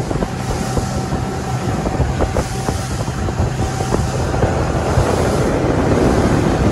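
A small fibreglass outboard boat under way, with engine and rushing water and wind buffeting the microphone, mixed with the jet-engine noise of an airliner passing low overhead. The whole growing slowly louder.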